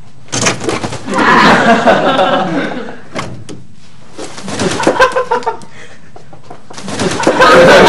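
Chickens squawking and flapping their wings in three loud bouts, about a second apart.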